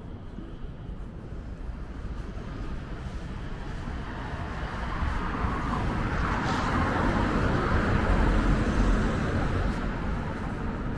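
A vehicle passing on the street over steady traffic noise: a rumble and tyre hiss that builds from about halfway through, is loudest near the end, then eases off a little.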